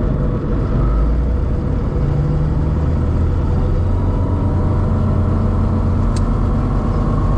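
Rotax 912 engine of a Grob G109B motorglider running steadily at low power, a continuous drone heard from inside the closed cockpit while the aircraft rolls along the runway.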